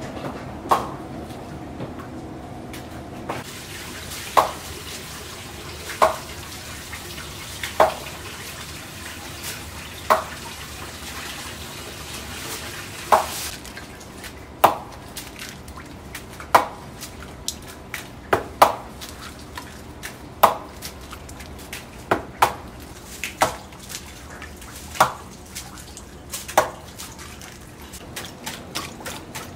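Raw eggs being cracked one after another into a basin of eggs, each landing with a short wet plop, about one every one to two seconds. Near the end a wire whisk starts beating them, with quick rapid clicks.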